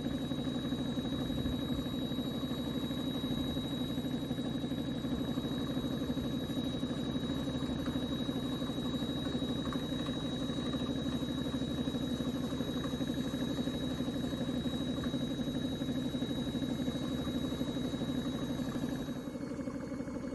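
A motor on paint-spraying equipment running steadily: a low hum with a thin, steady high whine over it. The higher part of the sound drops away about a second before the end.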